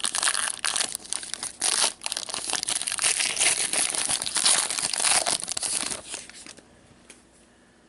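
Trading card pack wrappers being torn open and crinkled by hand, a dense crackling that stops about two-thirds of the way in.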